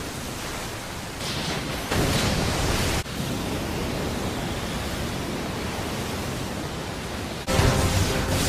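Anime sound effect of a Water Style wall of water surging against a sea of fire: a steady rushing hiss that swells for a moment about two seconds in. Near the end it is cut off by a sudden louder crash and music.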